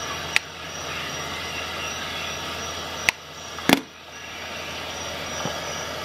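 Plastic Wera Bit-Check bit box being handled: three sharp clicks, the last and loudest a double knock about two-thirds of the way in, over a steady background hiss.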